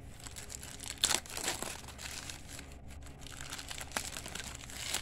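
Plastic wrapper of a 1988 Score Baseball card pack being torn open and crinkled by hand, with sharper tearing about a second in.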